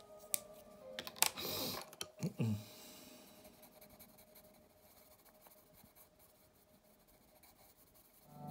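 A few sharp clicks and a short rustling burst, then a brief low creak, over faint background music. Ambient music with a singing-bowl tone starts just before the end.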